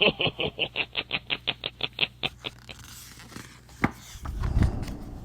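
A sound effect: a fast run of short pulses, about ten a second, that fades away over a couple of seconds, then a single knock.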